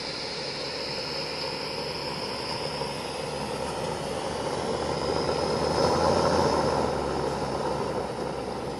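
Steady hissing rush from a live-steam model of Union Pacific Challenger No. 3977 being steamed up. The sound swells for a couple of seconds past the middle.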